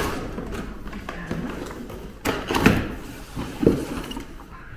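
Large cardboard box being opened: the lid is pulled up and folded back, with a few dull thuds and scraping rustles of cardboard, the loudest a little past halfway.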